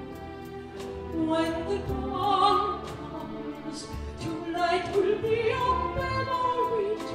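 A soprano singing with a wide vibrato on long held notes, accompanied by a live orchestra of strings, woodwinds and piano.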